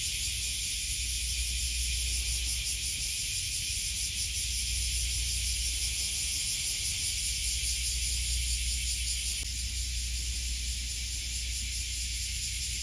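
Steady, high-pitched hiss of a summer insect chorus, most likely cicadas, over a low steady rumble.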